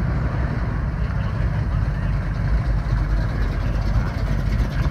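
Classic cars driving slowly past: a 1969 Ford Mustang fastback and then a Chevrolet Nova, their engines giving a steady deep exhaust rumble at low speed.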